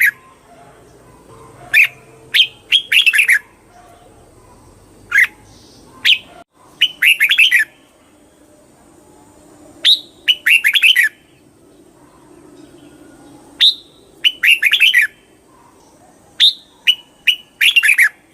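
Red-whiskered bulbul singing short phrases of quick, bright chirping notes, one phrase every two to three seconds.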